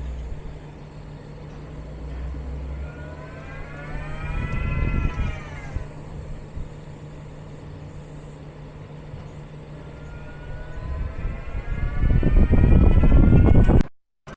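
Geely Geometry electric car pulling away from a standstill, its drive motor whine rising and falling in pitch as it speeds up and stops, then rising again as it pulls off once more, over a steady low hum and the rumble of the car moving. These are test launches and stops for the creak that this car makes on pulling away and braking.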